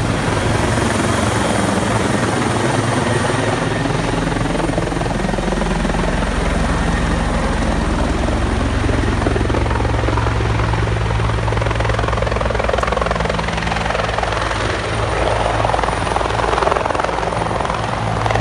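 Rescue helicopter landing close by: its rotor beats steadily and heavily over the engine's running sound, with a rush of noisy air that swells near the end.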